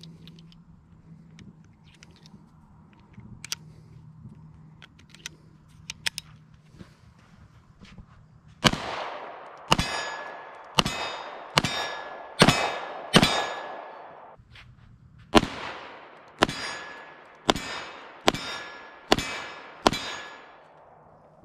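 A few light metallic clicks as cartridges go into the cylinder of a Kimber K6s .357 Magnum revolver. From about nine seconds in, the revolver fires twelve shots in two strings of six, roughly one a second, each shot trailing off in a short echo.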